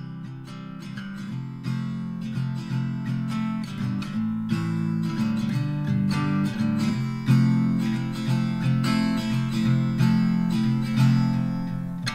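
Background music: an acoustic guitar tune with picked and strummed chords, growing gradually louder.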